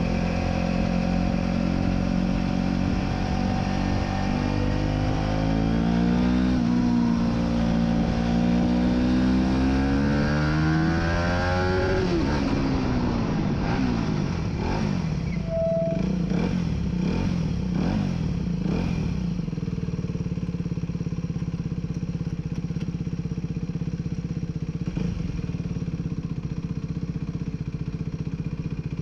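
Aprilia RS4 125's single-cylinder four-stroke engine pulling hard, its pitch climbing for about twelve seconds with a brief dip partway, then falling away as the bike slows, and settling to a low steady note for the last part.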